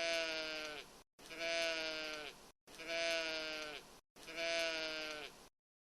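A sheep's bleat repeated four times, each call identical, over a second long and falling in pitch at the end, with dead silence between them. It sounds like a looped sound effect, and it stops near the end.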